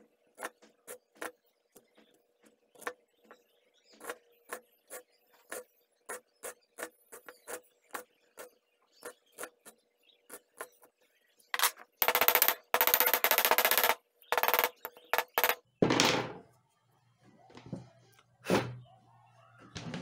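Small hacksaw cutting metal, its strokes sped up into short rasps about three a second. From about twelve seconds in comes a few seconds of much louder, denser rasping, then a couple of separate knocks near the end.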